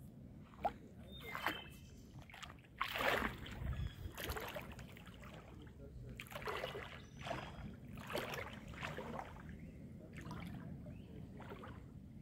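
Creek water trickling and sloshing, surging in uneven bursts over a low steady background.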